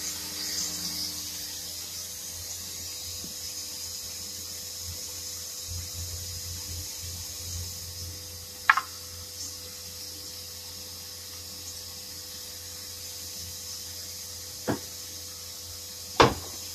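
Steady workshop hum and hiss, broken by a few sharp metallic clacks. The loudest comes near the end, as a resistance spot-welding gun is set against the car's steel rear body panel.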